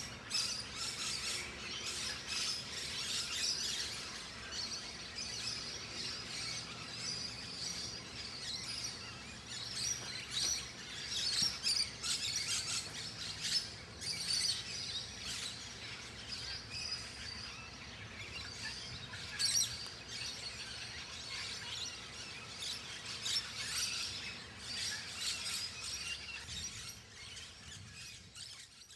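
Birds chirping and calling in a busy chorus of short, high calls.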